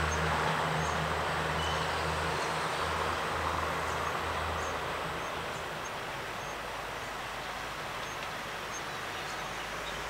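Diesel railcar engines droning low as the train pulls away, fading out about halfway through and leaving a steady hiss of background noise.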